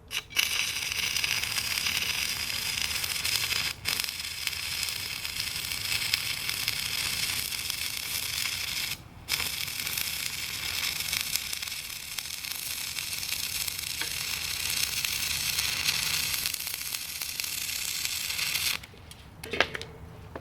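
Stick-welding arc, powered by car batteries wired together with jumper cables, crackling and sizzling steadily. The arc breaks off briefly twice, stops a little before the end, and a few short crackles follow.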